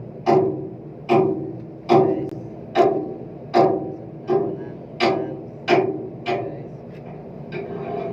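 Hammer blows on metal, about one strike every 0.8 s, each ringing briefly. The strikes weaken and become sparser near the end.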